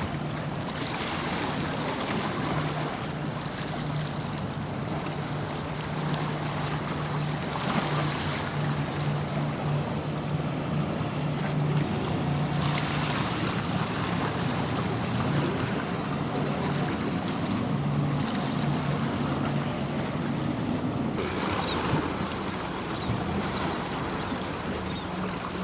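A boat engine drones steadily with a low hum, under a constant wash of surf and wind, with several louder rushes of noise spread through.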